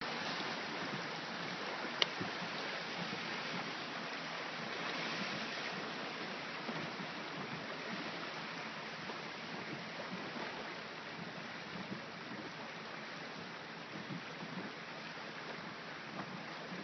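Floodwater rushing steadily past in a fast, swollen creek, with one sharp click about two seconds in.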